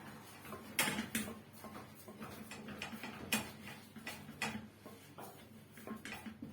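Irregular knocks and scrapes of a wooden cooking stick (mwiko) working stiff ugali against the sides of a pot, several strikes a second, the sharpest about a second in and again near the middle.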